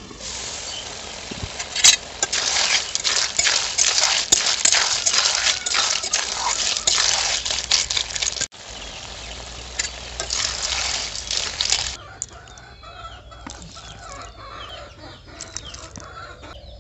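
Snails in their shells frying in curry in an aluminium wok over a wood fire: a loud sizzle with the clicking of shells and a steel spoon scraping the pan as they are stirred, and a sharp metal clink about two seconds in as the lid comes off. The sizzle breaks off briefly past the middle and stops near the end, leaving quieter outdoor sound with birds chirping.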